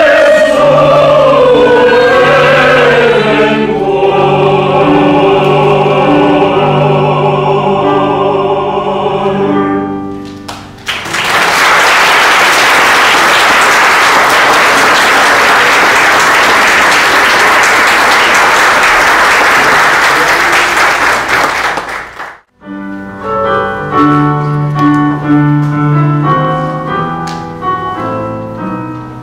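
Mixed choir singing a Christmas song, ending on a long held chord about ten seconds in, followed by about eleven seconds of audience applause. After a short break, piano notes begin an introduction.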